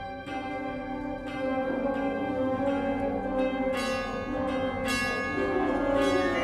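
Wind ensemble playing sustained chords, with struck bell notes ringing out over them about five times, roughly a second apart at first and then with a longer gap.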